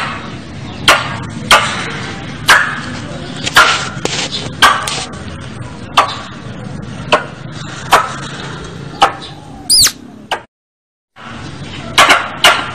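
Squirrel calling with sharp, repeated chips about once a second. Near the end of the run comes a short curving whistle, then a brief break in the sound, then a quicker burst of chips.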